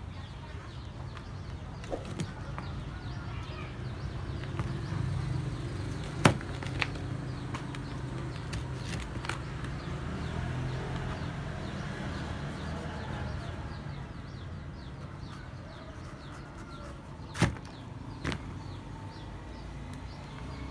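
Outdoor market ambience: a steady low rumble with a light background hiss, broken by a few sharp knocks, the loudest about six seconds in and two more close together near the end.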